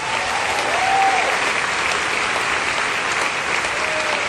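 Concert audience applauding, a dense steady clapping with a few brief voices calling out over it.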